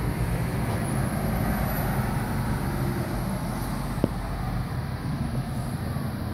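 1972 Chevrolet C10 Cheyenne pickup's engine idling steadily through its new dual exhaust with two-chamber Flowmaster mufflers, an even low rumble. A single sharp click about four seconds in.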